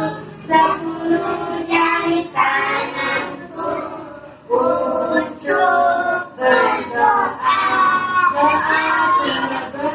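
Young children singing a song together in sung phrases with short breaks.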